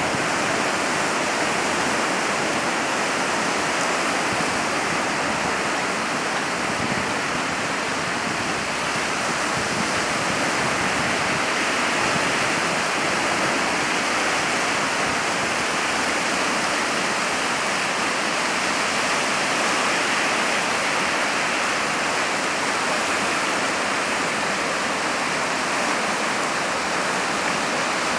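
Sea surf breaking over a rocky reef and washing up the shore: a steady, continuous rush of water without a clear rise and fall of separate waves.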